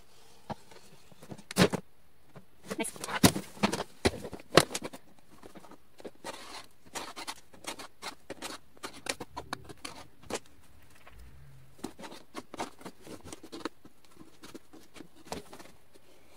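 Box cutter blade cutting through the plastic lid of a Sterilite storage bin: a run of irregular scraping clicks and cracks, loudest and thickest in the first few seconds, then sparser.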